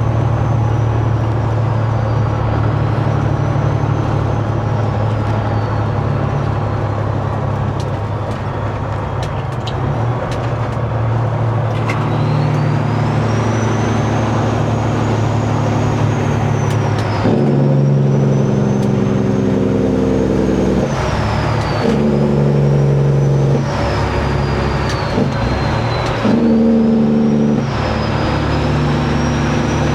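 Peterbilt 389 glider's diesel engine running on the highway, easing off for the first ten seconds or so, then pulling through about four gear shifts in the second half, a high turbo whistle rising through each gear and dropping sharply at each shift.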